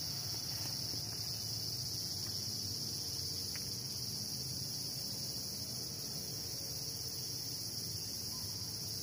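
Insects chirring in a steady, unbroken high-pitched chorus.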